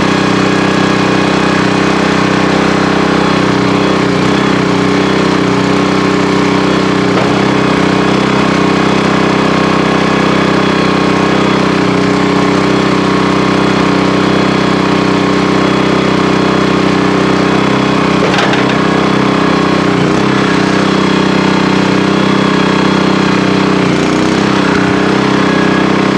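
Norwood HD38 portable band sawmill running steadily under load, its band blade cutting through a red oak log.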